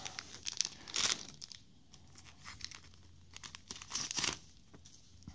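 Foil booster-pack wrapper being torn open and crinkled by hand, in short crackling bursts, loudest about a second in and again around four seconds as the cards are pulled out.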